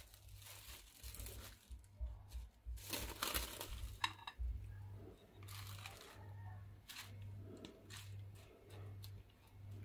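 Plastic cling film crinkling as it is peeled off a bowl, loudest about three seconds in, over a low hum.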